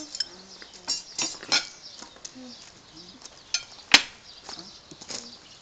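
Cutlery and dishes clinking and clattering in a run of short sharp knocks, with one loud clink about four seconds in.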